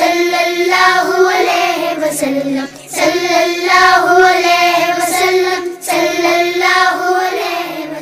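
A child's voice singing a devotional children's poem in long, drawn-out phrases, with short pauses between them, fading out near the end.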